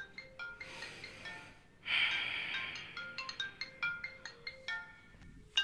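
Mobile phone ringing: a ringtone playing a quick tune of short notes, repeating, with a brief pause near the end. About two seconds in a short noisy burst, the loudest thing here, sounds over it.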